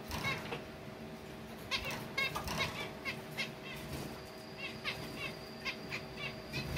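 Zebra finches giving short pitched calls, repeated in little clusters, with a flurry of wing flaps at the start as one bird flies down past the camera.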